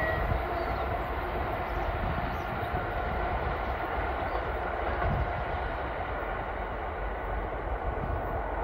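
A train running away down the line: a steady rumble of wheels on the rails that eases off only slightly as it recedes.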